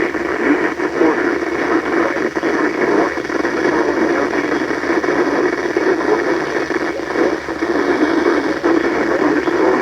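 Loud, steady radio static, dull and muffled with little treble, with no clear speech through it.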